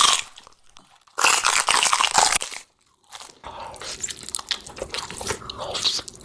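A person bites into a giant black Takis rolled tortilla chip with a loud crunch, then keeps chewing it with many smaller crackling crunches, close to the microphone.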